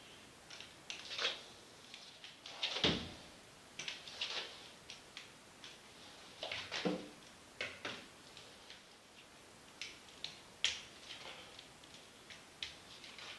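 Irregular taps and clicks of a pair of metal crutches and a person's footsteps on a hard floor, as someone walks slowly on crutches.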